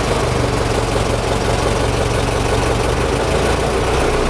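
1926 Ford Model TT's four-cylinder flathead engine idling steadily just after starting, with a little choke applied.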